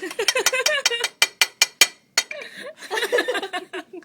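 Microwave-hardened luncheon meat tapped rapidly with a utensil, giving sharp clinking knocks about five a second for the first two seconds, which show how hard it has gone. Soft voices and giggling follow.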